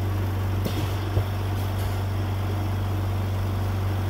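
Oxy Star 5 LPM oxygen concentrator running at a 5 litre flow setting, giving a steady low hum from its compressor. A couple of light knocks come in the first second or so.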